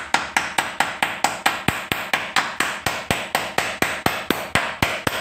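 Rapid, even hammer taps, about four a second, driving an old wooden stick in as a wedge beside a PVC pipe where it enters a wall, to hold the pipe firm. The tapping stops near the end.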